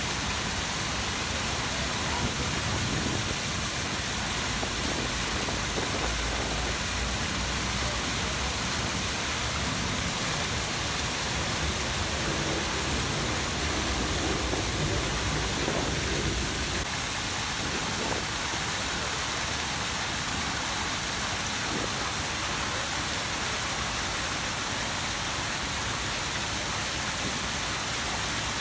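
Grand Cascade fountains, with the tall Samson fountain jet and the surrounding jets and cascades splashing into the pool: a steady, even rush of falling water.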